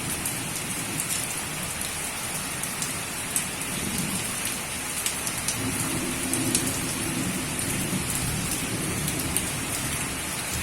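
Heavy rain falling steadily, with scattered sharp ticks of drops hitting nearby surfaces.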